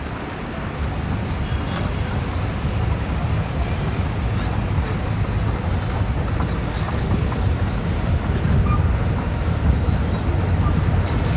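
Heavy earthmoving machine's diesel engine running steadily with a deep rumble, with scattered light clicks over it.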